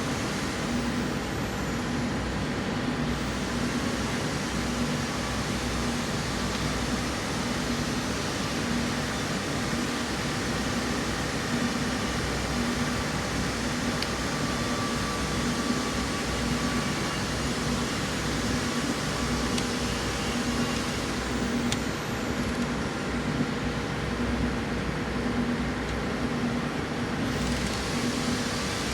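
Steady mechanical hum and noise, with a low tone pulsing roughly once a second.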